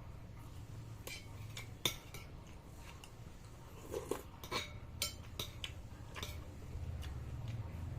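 Eating utensils clinking and scraping against a bowl in scattered short taps while someone eats noodle soup.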